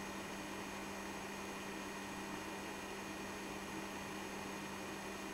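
Steady electrical hum over an even hiss, with no change throughout: room tone.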